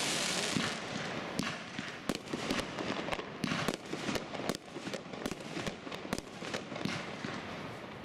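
Aerial fireworks display: small shells bursting in a rapid, irregular string of bangs and cracks over a steady hiss, densest about the first second.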